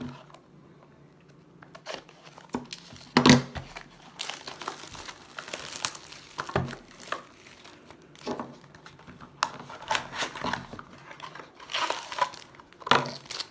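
Wrapper of a baseball card pack being torn open and crinkled by hand, in irregular crackles with the loudest burst about three seconds in.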